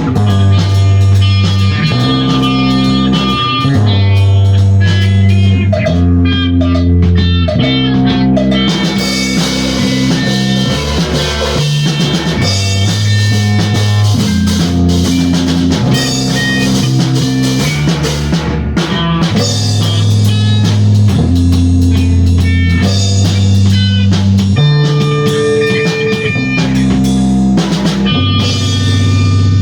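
Instrumental rock from a trio of bass guitar, drum kit and guitar: the bass holds long low notes that change every second or two under steady drumming and guitar lines.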